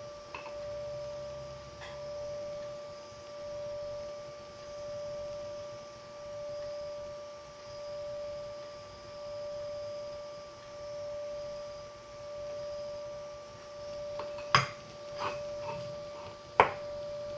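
Handheld gas-cartridge blowtorch burning with a steady humming tone while it heats a bearing race, swelling and easing about once a second; the owner calls the torch lackluster and thinks it is slightly blocked. Two sharp knocks about two seconds apart near the end.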